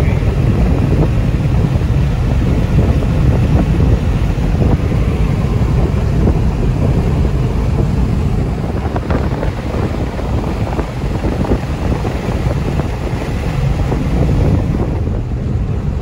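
Wind and road noise inside a small car driving at highway speed with a side window open: a steady low rumble of buffeting air and tyres that eases a little near the end.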